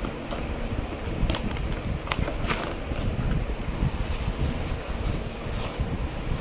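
Shredded kraft-paper packing rustling and crackling as it is pulled out of a cardboard box, with several sharp crinkles over a low rumble of handling noise.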